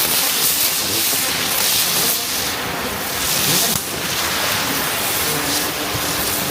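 Ground-spinner firework spinning and spraying sparks with a loud, steady hiss that swells slightly now and then.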